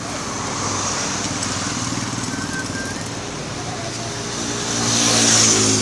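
A road vehicle's engine running as it comes up and passes close by. It grows louder, with a rush of tyre and air noise at its loudest about five seconds in, then falls away.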